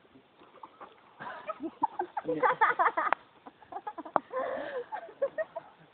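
People laughing hard in quick, choppy bursts, loudest from about one to three seconds in, with another burst a little past the middle. A few sharp clicks sound among the laughter.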